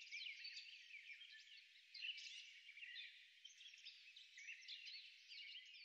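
Faint, dense chorus of high-pitched animal chirps: many short rising and falling calls overlapping, with no low sound beneath them.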